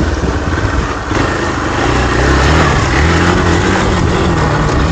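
Hero Xpulse 200's single-cylinder engine running at low speed on a rough dirt climb, its pitch wavering as the throttle is worked, under a steady rush of noise.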